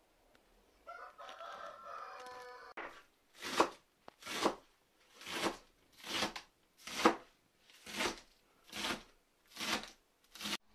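A rooster crows once about a second in. Then a kitchen knife slices through green onion stalks onto a wooden cutting board in nine even strokes, a little under a second apart.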